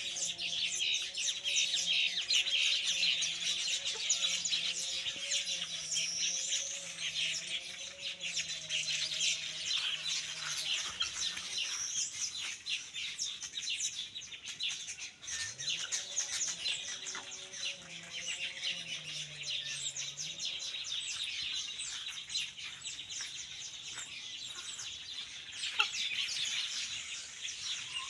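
A weaver bird colony chattering: a dense, unbroken mass of rapid chirps and calls. A low wavering tone runs underneath for roughly the first ten seconds and again briefly in the middle.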